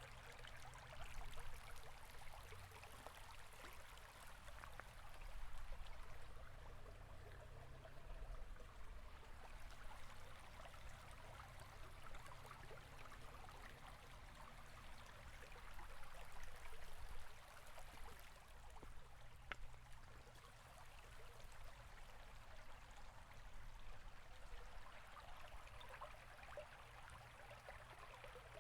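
River water flowing steadily, a soft rushing and trickling with gentle swells in loudness and a low rumble underneath.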